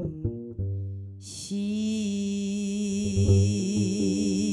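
A few plucked double bass notes, then a woman's voice enters about a second in and holds one long note in pansori style with a wide vibrato while the bass keeps plucking underneath.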